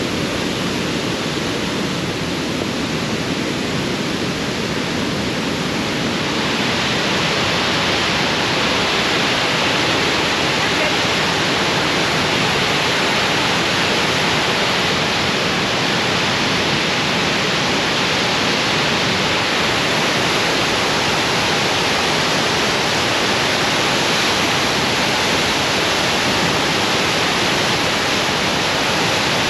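Waterfall's steady rushing of falling water, growing louder and brighter about six seconds in.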